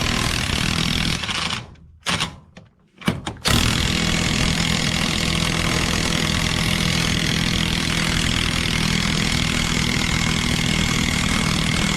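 Porter-Cable cordless impact wrench hammering in reverse on an over-tightened bolt: a short burst, a brief second burst, then a continuous run of hammering for about nine seconds as the bolt begins to come loose. The bolt turns very hard, which is taken for threads deformed by over-driving.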